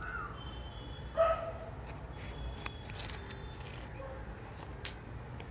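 A dog barking in short high yips: one at the start and a louder one about a second in. Faint rustling of cloth being handled lies under it.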